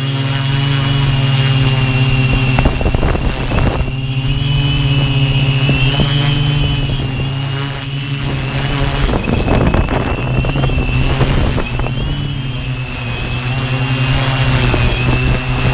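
Brushless motors and propellers of a Tarot 650 multirotor drone running in flight, heard from its own onboard camera: a steady hum with a high whine that wavers slightly in pitch with throttle. Wind buffets the microphone in gusts.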